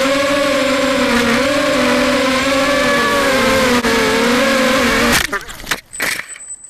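Small RC drone's electric motors and propellers whining steadily as heard from its onboard camera, the pitch wavering up and down with throttle. About five seconds in it crashes into grass with a few sharp knocks and scrapes and the motors cut out. A thin high tone is left near the end.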